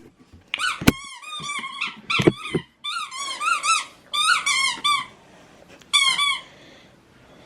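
Rubber squeaky pet toy squeezed over and over in quick runs of short, rising-and-falling squeaks, with a couple of sharp clicks among them, as a dog plays with it.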